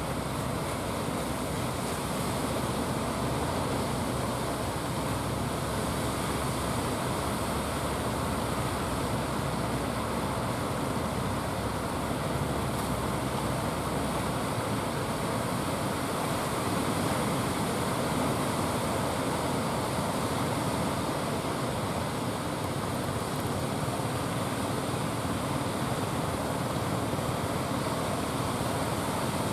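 Ocean surf breaking and washing onto the beach: a steady rushing noise without letup.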